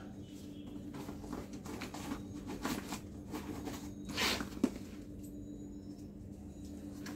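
Nylon backpack fabric and straps rustling as they are handled and tucked away. About four seconds in there is a short, louder rasp, then a sharp click, over a steady low hum.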